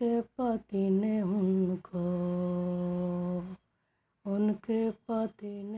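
A woman singing a Hindi devotional song (devi geet) unaccompanied: short sung phrases, then one long held note of about a second and a half, a brief pause, and more short phrases.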